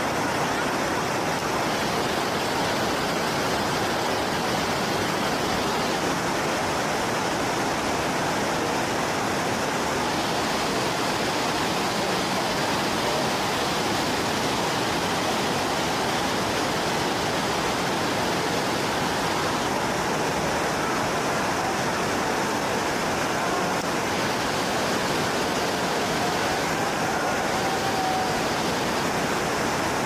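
Steady rush of a waterfall and shallow cascades pouring over rock ledges.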